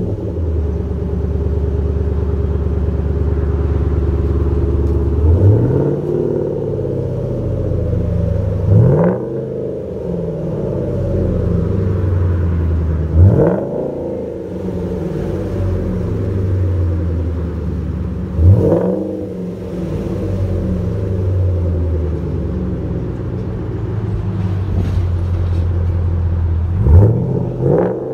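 Ford F-250's 6.2-litre gas V8 idling through a true dual exhaust with Street Demon mufflers and Quadzilla quad tips, revved five times; each rev is a quick rise in pitch that falls back to a steady idle.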